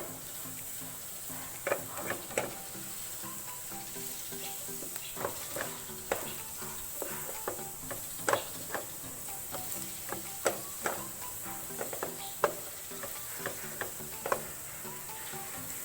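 Fried rice with carrots and string beans sizzling in a pan while a cooking utensil stirs it, scraping and knocking against the pan at irregular intervals about once a second.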